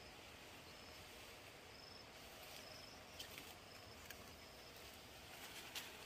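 Near silence: faint outdoor ambience with a short, high chirp repeating about once a second and a few light clicks.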